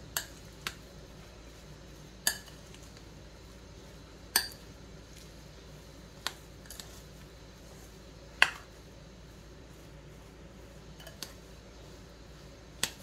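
A spoon clinking against a bowl now and then while spiced mashed-potato samosa stuffing is mixed: about eight separate sharp clinks, irregularly spaced a second or two apart, the loudest about eight seconds in.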